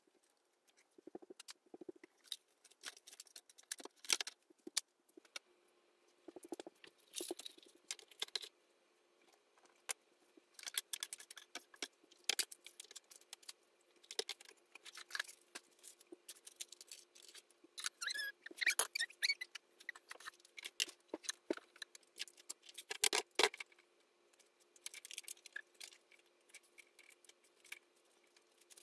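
Small items being handled and put away on a sewing desk: scattered clicks, taps and light rattles of plastic and metal objects, with bits of rustling, over a faint steady hum.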